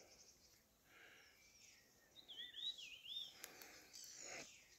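Faint bird song over near silence: a short run of quick up-and-down whistled notes a couple of seconds in, with a single sharp click later on.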